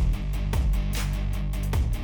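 Instrumental electronic rock background music with a steady drum beat, bass and electric guitar.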